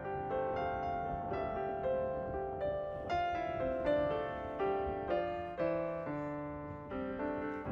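Background music: a gentle piano melody with notes struck one after another and left to ring.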